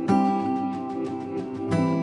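Background music of strummed guitar chords, moving to a new chord just after the start and again near the end.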